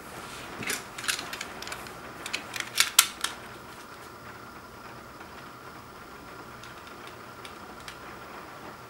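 Plastic shrink wrap on a vinyl LP jacket crinkling and crackling as fingers pick at it, a quick run of sharp crackles that is loudest about three seconds in. After that there are only faint ticks and scratches as a box cutter slits the wrap along the jacket's edge.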